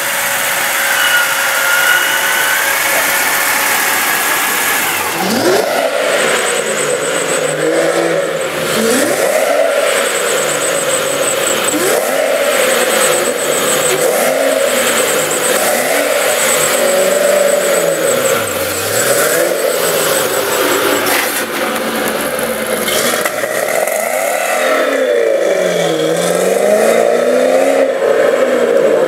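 For the first few seconds, a steady high whine over an idling engine. Then a Ford Mustang V8 is revved up and down again and again, each rev rising and falling over a second or two, with deeper, longer revs near the end as the car pulls away.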